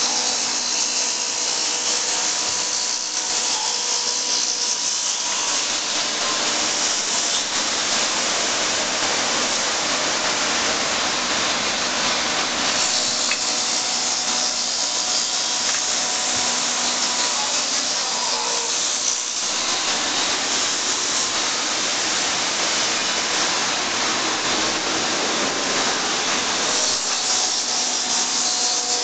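1998 Intorex RM-115 automatic copy lathe running and turning wood blanks: a steady, loud hiss of cutting over a constant motor hum, the cutting noise easing briefly now and then.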